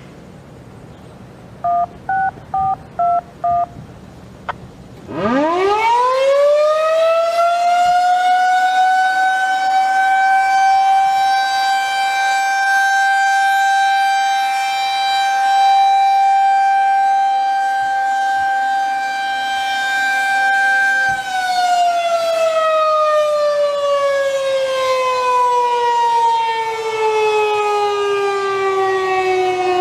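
Federal Signal 2001-SRN outdoor warning siren sounding a steady alert test: it winds up quickly about five seconds in, holds one steady, loud tone for about fifteen seconds, then winds down with the pitch falling steadily. A quick series of about five short electronic beeps comes just before the wind-up.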